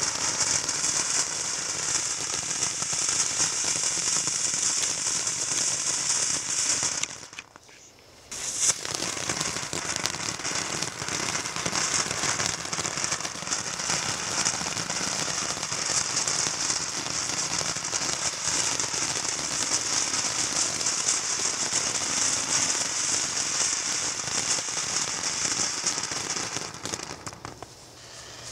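Ground fountain fireworks (Green Dragon, then Multicolor Dragon) spraying sparks with a dense, steady crackling hiss. It breaks off about seven seconds in, starts again sharply a second and a half later as the second fountain burns, and dies away near the end as that fountain burns out.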